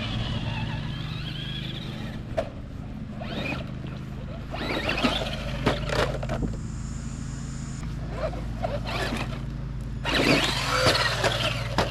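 Electric RC truck driving: a steady motor hum with a whine early on, and several short clattering knocks as the truck runs over rough ground.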